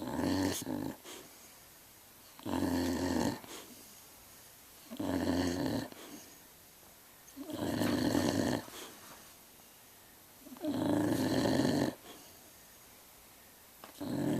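A sleeping pet snoring in slow, regular snores, one about every two and a half to three seconds, each lasting about a second.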